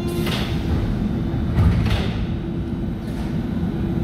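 Metro train's sliding doors closing: short rushes of air and thuds as the doors shut, the loudest thud about two seconds in, over the steady rumble of the train standing at the platform.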